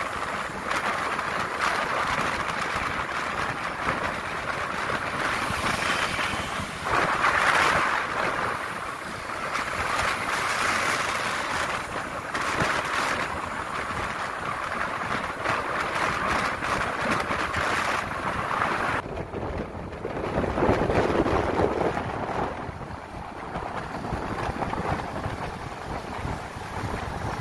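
Wind rushing over the microphone of a moving motorbike, mixed with engine and road noise, the rush swelling and easing as the bike rides along.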